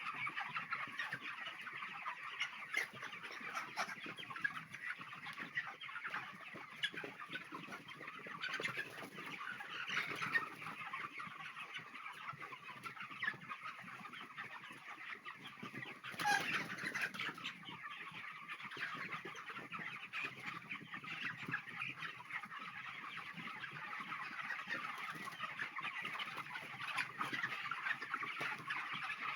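Large flock of four-week-old broiler chickens in a poultry house, a continuous din of many overlapping clucks and calls, with a louder burst of calls around the middle.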